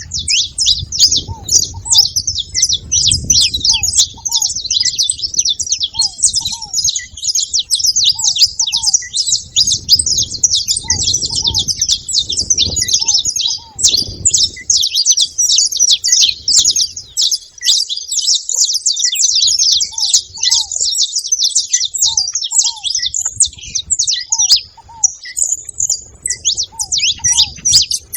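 A flock of saffron finches chirping at once, a dense, unbroken chatter of high overlapping chirps, with a short lower note repeating every second or two.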